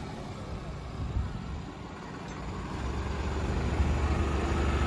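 Tractor diesel engines labouring under load in a tug-of-war pull, two tractors chained back to back. The low rumble grows steadily louder through the second half.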